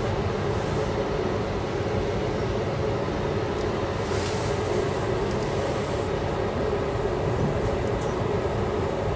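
Steady running noise of an Amtrak passenger train heard from inside the coach: an even rumble of the wheels on the rails with a constant hum under it.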